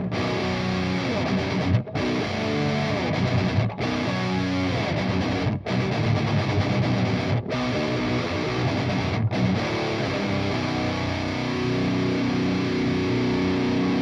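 Heavily distorted electric guitar playing a heavy rhythm riff through a Peavey 6505 120-watt amp and a Zilla 4x12 cabinet with a Vintage 30 speaker. It is recorded with a ribbon mic close to the speaker at high volume, and the mic is not overloading. The riff breaks off briefly about every two seconds, then a chord is held from a little past the middle.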